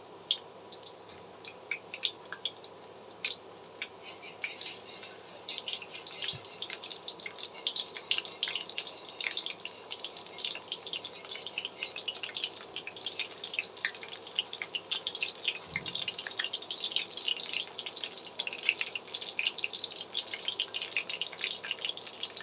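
Batter-coated onion flower stalks deep-frying in hot cooking oil in a kadai: a sizzle of fine crackles. The crackling is sparse at first and grows denser as more battered pieces go into the oil.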